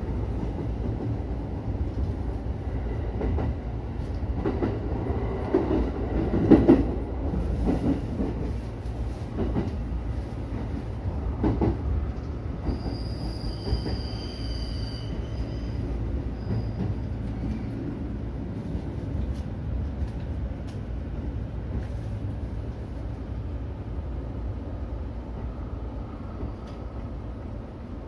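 E231-series electric train running on rails, heard from inside the cab: a steady low rumble with wheel-on-rail clicks, and a brief high squeal about halfway through.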